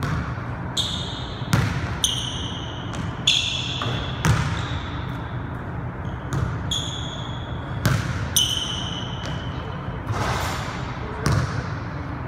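Basketball bouncing irregularly on a hardwood gym floor as it is dribbled and passed, with short high-pitched sneaker squeaks between the bounces.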